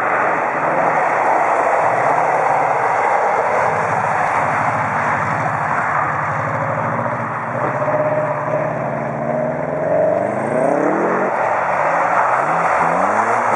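Car engine running hard at high revs while the car slides sideways through an icy, snow-covered corner, over a loud rushing noise. Near the end the revs climb sharply twice, each time dropping back after.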